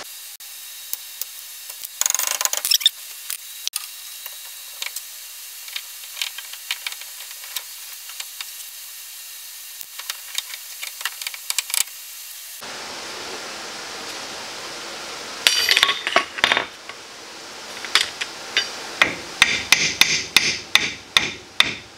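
Hammer beating on a brake caliper that is being forced over a new brake rotor: light clicks and taps of hand tools at first, then a few hard metal strikes, and near the end a quick run of about a dozen blows. The caliper won't slide on because the new rotor is thicker than the old one.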